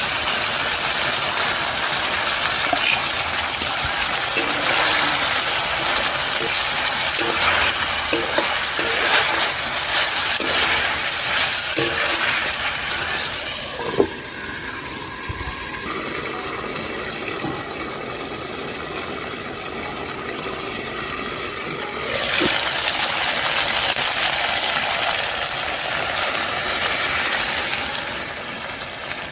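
Mutton sizzling as it fries in a black iron kadai over a wood fire. About halfway through a steel lid is set on the pan with a sharp clink, and the sizzling becomes quieter and muffled. Later it grows loud again, with water poured into the pan near the end.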